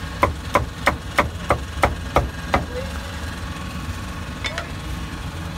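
A cleaver chopping roast meat on a chopping block: eight quick, sharp strokes about three a second, then two more a couple of seconds later. A steady low engine rumble runs underneath.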